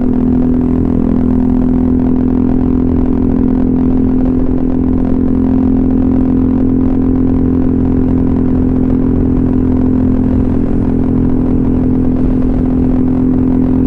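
Honda ADV 150 scooter's single-cylinder engine through an aftermarket SC Project slip-on exhaust, running at a steady cruising speed with an even drone that holds one pitch.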